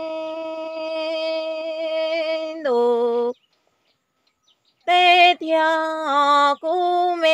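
A woman singing Hmong kwv txhiaj unaccompanied: one long held note wavers slightly, drops in pitch and breaks off about three seconds in. After a pause of about a second and a half, the singing resumes on held notes that step downward.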